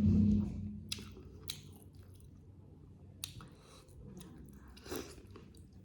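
A person chewing a mouthful of chicken curry and rice close to the microphone, with faint wet mouth clicks and small crunches. A loud low hum fades out within the first second.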